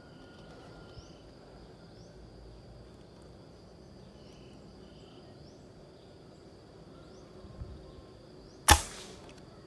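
A PCP air rifle fires a single sharp shot about three-quarters of a second before the end. Under it, insects drone steadily at a high pitch.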